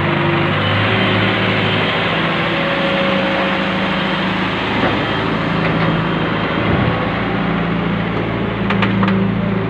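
Wheeled excavator's diesel engine running steadily as its bucket digs out a deep pit, with a few faint knocks near the end.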